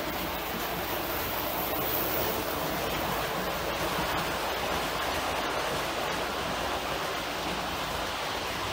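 OO gauge model train running along the track, a steady rumbling whir from wheels and motor with a few faint clicks.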